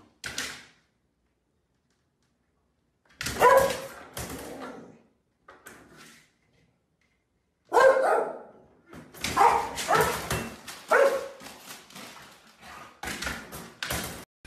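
Terrier-type dog barking at a front-door mail slot, in short sharp barks that come in groups separated by brief silences, ending in a fast run of barks.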